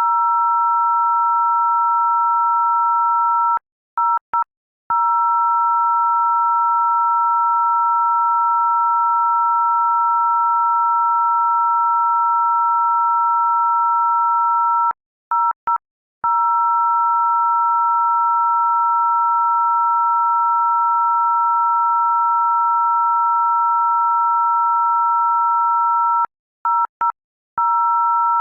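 Loud, steady electronic tone of two high pitches sounding together, like a dial tone. Three times, about every eleven seconds, it breaks off briefly into a quick stutter of short blips before resuming.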